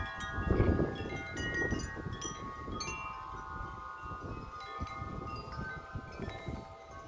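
Wind chimes ringing hard in strong gusts, struck again and again so that many notes overlap and ring on. Wind buffets the microphone with a low rumble, strongest about half a second in.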